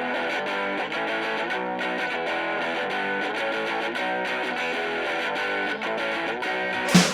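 Background music: a distorted electric guitar picking a repeating melodic figure, with a full rock band coming in at the very end.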